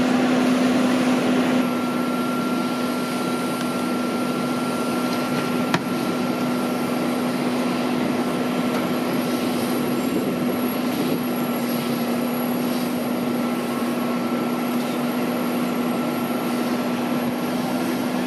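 Fire engine's engine and pump running with a steady drone and constant low hum, under an even rushing hiss of hose spray hitting the burning bus. One sharp click about six seconds in.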